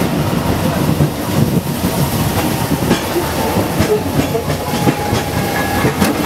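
Peak Tram funicular car running on its rails, heard from inside the car: a steady rumble with irregular clattering knocks from the wheels and running gear.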